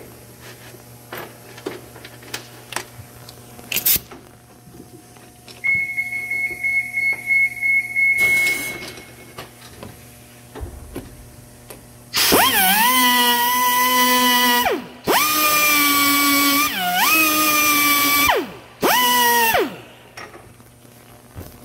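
A power tool run in four bursts of one to three seconds each, most of them during the second half. At each start the motor's pitch dips, then climbs and holds steady under a high hiss. Light clicks of handling are heard before it.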